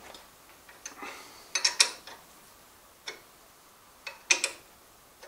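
Spanner working the mounting nut of a Dumore No. 44 tool post grinder as it is slackened: scattered sharp metallic clicks and clinks, some single and some in quick clusters, about a second apart.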